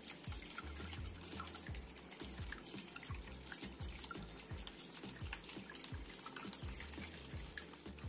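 Water from a small pump-fed cement desktop waterfall fountain trickling from a spout and splashing steadily into a bowl below, with faint background music and a beat underneath.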